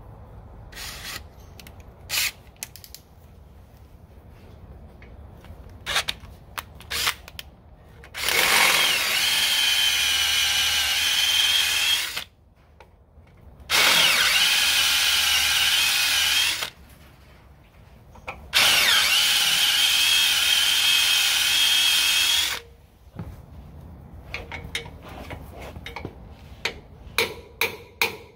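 Electric drill with a quarter-inch bit boring out the factory spot welds on a steel lower-control-arm cam tab, in three runs of a few seconds each with a steady whine. Near the end come quick repeated metal taps, a chisel being struck against the tab.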